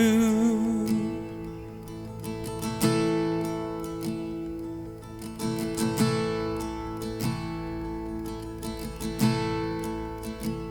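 Fender acoustic-electric guitar playing soft, ringing chords as an interlude, a new chord struck every second or so. A held sung note fades out about a second in.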